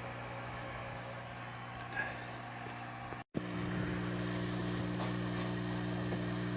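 Steady low machine hum. It breaks off for an instant a little over three seconds in, then comes back slightly louder.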